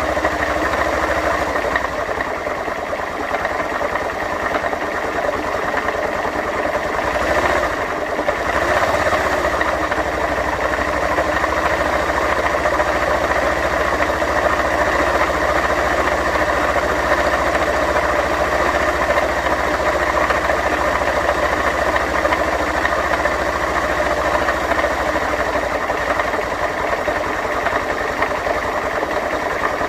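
Honda CG 125 Fan motorcycle engine idling steadily with a rhythmic mechanical clatter. This is the strange noise coming from the freshly rebuilt engine. About eight seconds in, the engine speed briefly changes.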